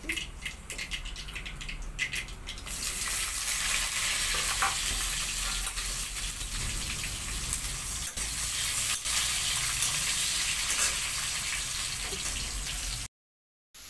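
Sliced onions frying in hot oil in a kadai, stirred: a steady sizzle that grows much louder about three seconds in, with short clicks before it. The sound cuts off for a moment near the end.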